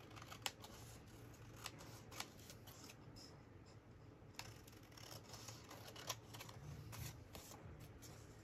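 Large metal scissors cutting through a sheet of card: faint, irregular snips spaced a second or two apart.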